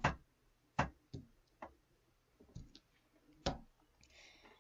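Footsteps: about six separate sharp steps at uneven spacing, the last one, past the middle, among the loudest.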